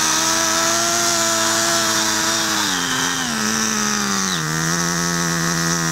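Small nitro glow engine of an old 1/10 RC touring car running just after its first start, its needle set rich for break-in. It holds a high, steady speed, then slows in two steps, about two and a half and four and a half seconds in, to a lower steady speed.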